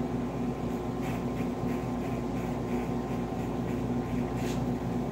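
Electric hair clipper running with a steady hum.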